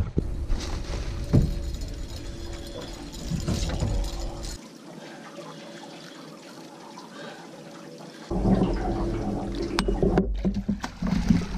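Water sloshing and gurgling beside a boat as a catfish goes into a mesh holding bag hung in the water, with a few knocks. Partway through the sound drops to a quieter hiss, and a low rumble returns near the end.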